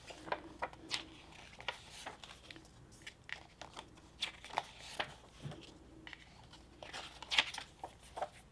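Pages of a large hardcover picture book being turned by hand: paper rustling and flapping in short, irregular bursts, with one louder page flip near the end.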